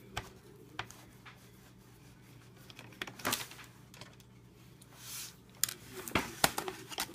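Light, scattered clicks of a small screwdriver working a keyboard screw in a laptop's plastic case, then a quick run of plastic clicks and knocks near the end as the keyboard is lifted out of the case.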